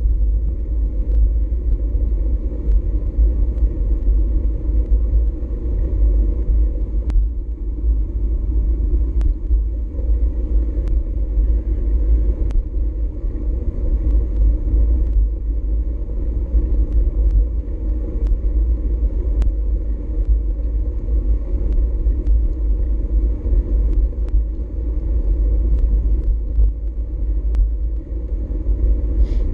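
Wind buffeting the microphone of a GoPro Hero4 Session on a moving bicycle: a steady, loud low rumble that rises and falls in gusts, with scattered light clicks throughout.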